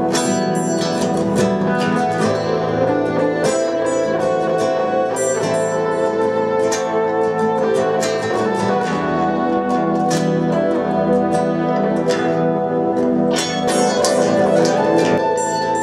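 Bossa nova played live on acoustic guitars: plucked chords and melody over sustained held notes.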